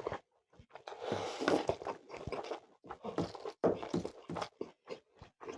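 A person chewing and biting chicken leg curry with rice, close to the microphone: an irregular run of short mouth clicks and smacks with brief pauses.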